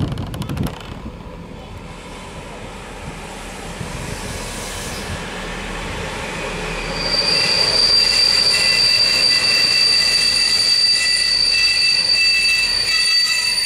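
Diesel railbus train of two SA137 units with a coach between them rolling slowly into the terminus, its running noise building. About halfway through, a loud squeal in several steady high tones sets in from the wheels as the train slows and keeps going to the end.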